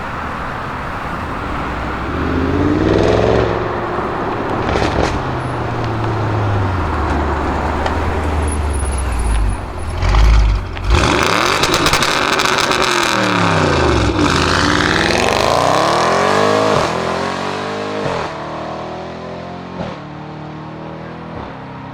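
Twin-turbo V8 of an Audi RS6 Avant C7 with a Milltek exhaust running loudly. It revs once early on and gives a loud low blast about ten seconds in. Its note then sweeps down and back up, and it climbs in steps through the gears as the car accelerates away and fades.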